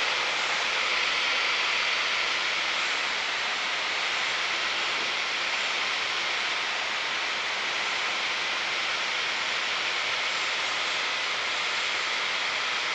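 Steady in-flight cabin noise of a Piper Warrior light aircraft, an even hiss of engine and airflow picked up through the headset intercom, easing slightly after the first couple of seconds.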